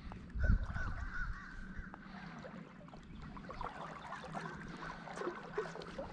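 Birds calling: a quick series of short calls about half a second to a second in, then scattered fainter calls, over a faint steady background. A low thump comes about half a second in.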